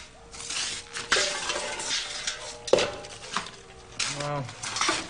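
Kitchen utensils and crockery clattering and scraping, with sharp knocks about a second in and again near three seconds.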